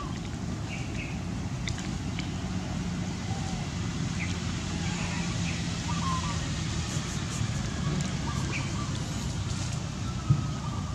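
Steady low outdoor rumble with a few faint, short chirping calls scattered through it, and a single sharp knock near the end.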